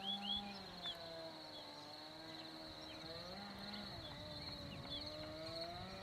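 Countryside ambience: birds chirping in short quick notes over a steady high-pitched hum, with a distant low drone that slowly rises and falls in pitch throughout.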